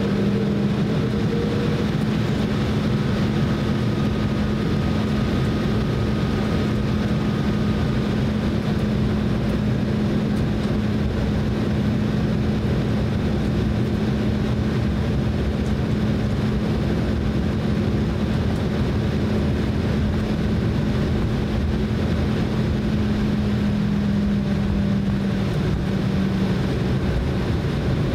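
Cabin noise of an Embraer E190 taxiing, heard from a passenger seat: its GE CF34 turbofans running steadily at low taxi power under a steady low hum.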